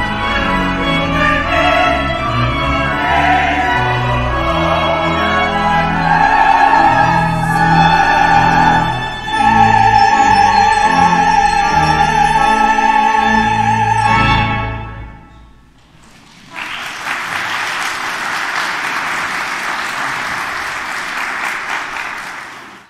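A classical-style vocal piece with instrumental accompaniment, ending on a long held sung note with vibrato that fades out about 15 seconds in. A second later, congregation applause starts and runs for several seconds.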